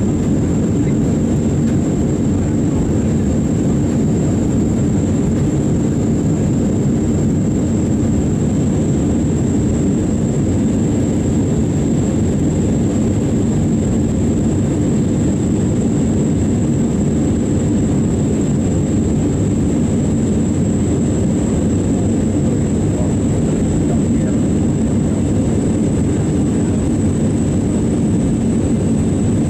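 Airbus A319 cabin noise from a window seat while the airliner climbs: steady jet engine and airflow noise, deepest and strongest at the low end, with a thin high whine that never changes.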